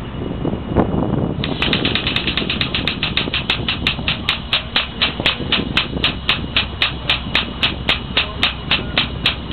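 Air-operated double-diaphragm pump starting up about a second and a half in, then running with sharp, regular clicks about four to five times a second as it pumps oil out through the drain-plug hose. A steady low rumble runs underneath.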